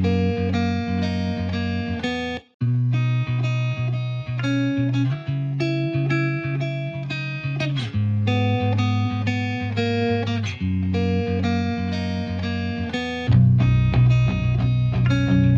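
Background music: guitar playing picked notes in a steady rhythm, with a brief break about two and a half seconds in and a fuller bass coming in near the end.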